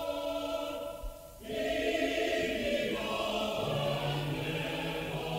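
A choir singing in long, held chords. The sound dips briefly about a second in, then the voices come back fuller, and lower voices join later on.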